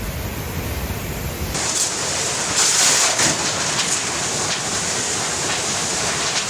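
Storm noise of a cyclone: wind and rushing water, with wind buffeting the microphone. About a second and a half in, the sound changes abruptly from a low rumble to a brighter, louder hiss that surges in gusts.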